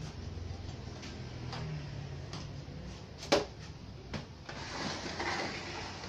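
Handling noise of a CRT television set being moved on a workbench: a sharp knock about halfway in, a lighter click just after, then a scraping as the set is swivelled round.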